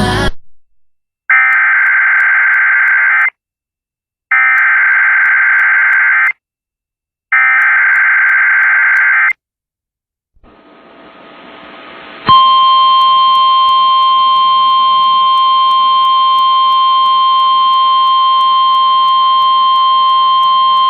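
An emergency alert broadcast opening with three identical warbling digital SAME header bursts, each about two seconds long with short gaps between them, which encode the coming warning. About ten seconds in a hiss of radio static fades up, and then the loud steady 1050 Hz NOAA Weather Radio warning alarm tone sounds for about eight seconds.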